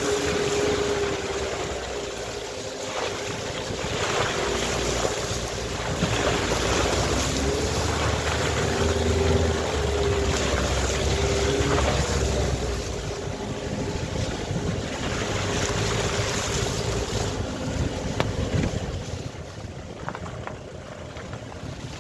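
Car engine running as the car drives along a muddy, rutted track, its note rising and falling, over a steady rush of tyre and wind noise. It quietens near the end.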